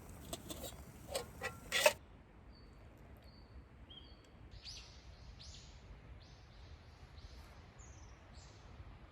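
A few sharp crackles and snaps in the first two seconds, then small birds calling in a series of short, high chirps, some sliding down in pitch, over faint outdoor background noise.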